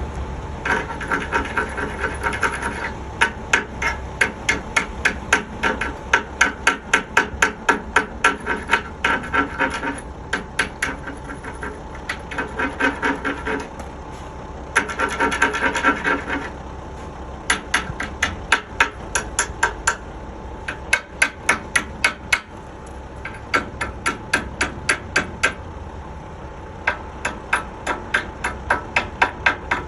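Runs of rapid hammer strikes on steel, about four a second, with stretches of scraping in between.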